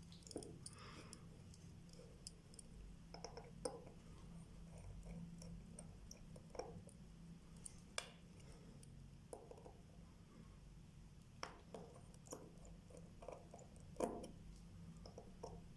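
Faint, scattered clicks and light scrapes of small watchmaker's tools against a Vostok Amphibia mechanical watch movement, the sharpest click about 14 seconds in, over a low steady hum.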